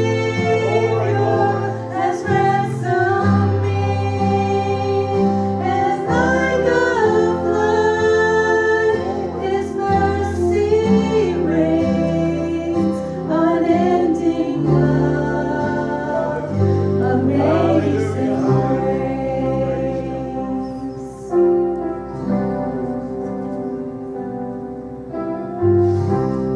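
Gospel worship song: a choir and a female voice singing over sustained keyboard chords and bass notes, the voices thinning out about two-thirds of the way through.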